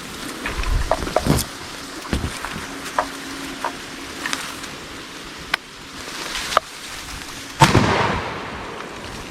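A shotgun shot about three quarters of the way through, a loud crack followed by a fading echo. Before it come a few lighter knocks and sharp clicks.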